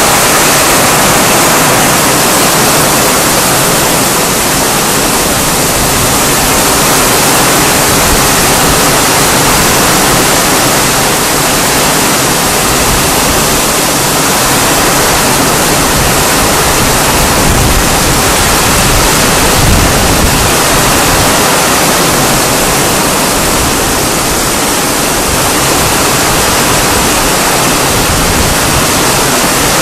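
Heavy rain pouring down, a loud, steady hiss. A few brief low rumbles come a little past the middle.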